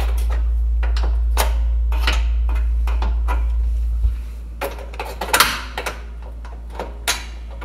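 Sharp metallic clicks and knocks as the hinge lock of an oven door is worked by hand and with a screwdriver to release the door. A steady low rumble underlies the first four seconds and stops abruptly.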